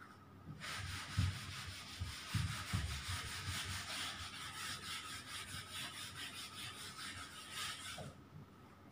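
Whiteboard duster rubbing back and forth across a whiteboard, wiping off the writing. It starts about half a second in and stops about eight seconds in, with a few dull knocks in the first three seconds.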